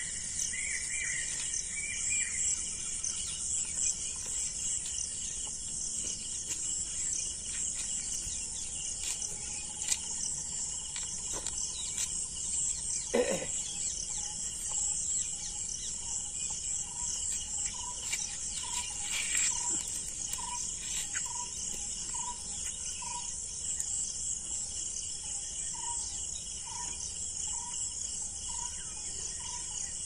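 Steady high-pitched chorus of crickets, with birds chirping at the start. About halfway through comes a single falling squeal, the loudest sound, and in the second half a short call repeats a little faster than once a second.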